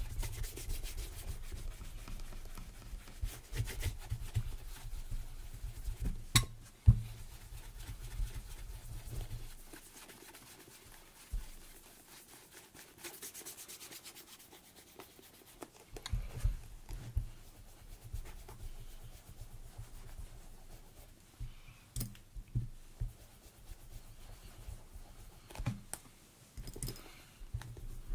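Leather boot being rubbed in quick repeated strokes, as in working in conditioner or polish, with a few sharp knocks along the way.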